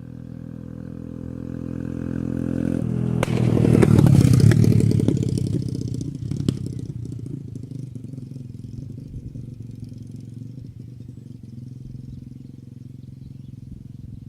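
Orcal Astor 125 motorcycle's single-cylinder engine passing by at a steady pitch. It grows louder to its loudest about four seconds in, then fades away with an uneven, popping exhaust. Sharp exhaust pops come as it passes.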